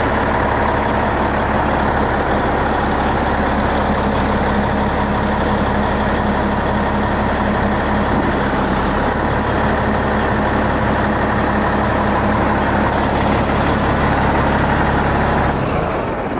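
A heavy dump truck's diesel engine running steadily with its dump box raised, with a short hiss about nine seconds in. The low engine note drops away and the sound gets quieter near the end.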